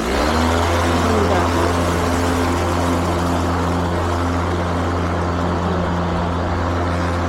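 Mowrator 2WD battery-electric remote-control lawnmower running with its cutting blades spinning: a steady low hum with whirring tones over a broad rushing noise, the pitch rising briefly as it starts and then holding steady.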